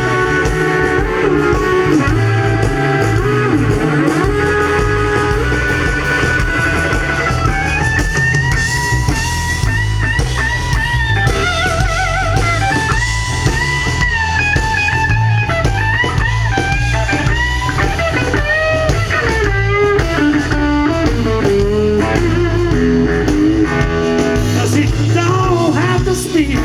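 Live blues band playing an instrumental break: a lead guitar plays a solo with bent, sliding notes over steady bass and drums.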